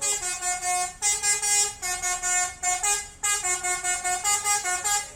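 Indonesian bus telolet horn, a multi-trumpet air horn, playing a tune of held notes that step up and down in pitch. The tune comes in several loud phrases, with short breaks about one second and three seconds in.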